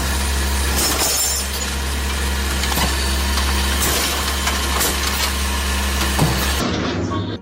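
Automated side-loader garbage truck running steadily, with scattered clanks and clatter of glass and refuse during pickup. The sound cuts off near the end.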